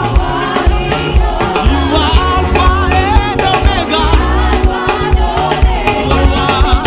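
Upbeat gospel praise music: sung voices with vibrato over a band with strong bass and drums.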